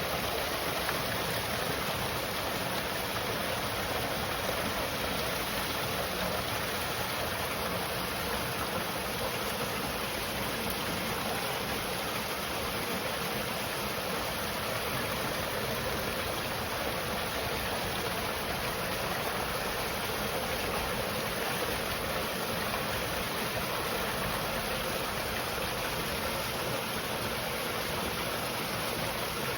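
Steady rush of running water in the temple's spring-fed bathing pools, an even, unbroken sound.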